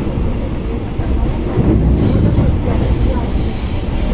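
Suburban electric train running, heard from inside the carriage: a steady low rumble of wheels on the rails that grows louder about a second and a half in, with a faint high wheel squeal over it.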